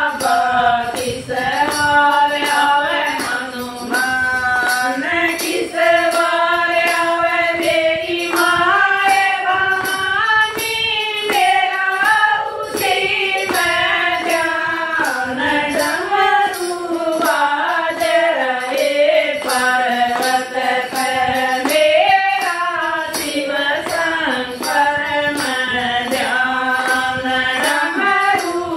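A group of women singing a Hindi devotional bhajan to Shiva in unison, with hand claps and a handheld clapper keeping a steady beat.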